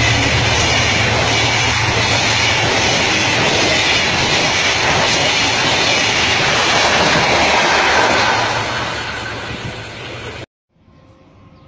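Spanish-built passenger coaches of an Egyptian train running past at speed, a steady loud rush and rumble of wheels on the rails. It fades as the end of the train goes by, then cuts off abruptly about ten seconds in.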